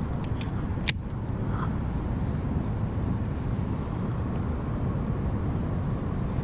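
Low, uneven rumble of wind buffeting the camera microphone, with one sharp click about a second in.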